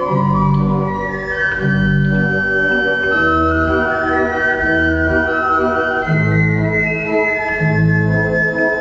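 Organ played in a slow, gentle andante in G major: sustained chords under a melody, with the bass moving to a new note about once a second.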